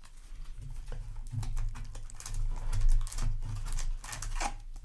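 Yu-Gi-Oh! trading cards and booster packs handled by hand: a quick, irregular run of small clicks and taps like typing, over a low rumble of handling noise.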